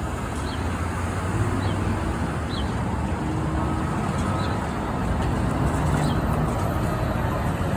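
A bus engine running amid road traffic noise, a steady low rumble.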